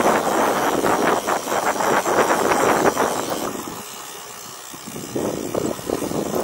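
Wind buffeting a chest-mounted action camera's microphone on a mountain-bike ride, with the rattle of the bike on a dirt trail. It dies down for about a second roughly four seconds in, then picks up again.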